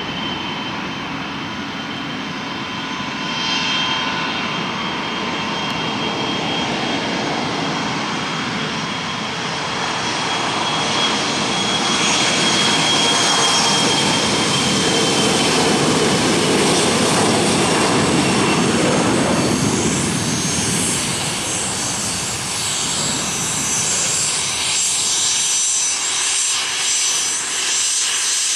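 Delta Connection Embraer E175 regional jet's twin GE CF34 turbofans running as it rolls past on the runway: a high whine over a broad jet rush that builds, is loudest around the middle, and drifts down in pitch as the jet goes by, then fades.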